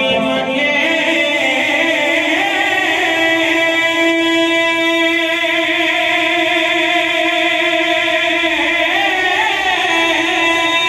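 A man singing a naat unaccompanied into a microphone. He holds one long note for most of the stretch, then moves to a new pitch near the end.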